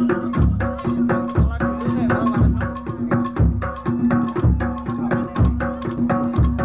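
Jaranan Dor gamelan-style ensemble playing: kendang hand drums in quick strokes, a deep bass drum beat about once a second, and sustained metallic pitched tones underneath.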